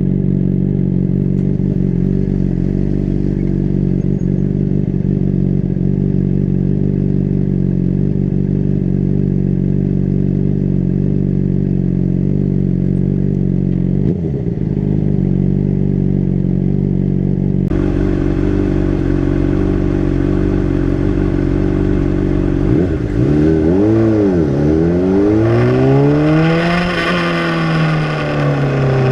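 Honda CBR600RR's inline-four engine running at a steady, constant pitch, with a brief dip about halfway through. Near the end the revs jump up and drop back once quickly, then climb and fall again more slowly.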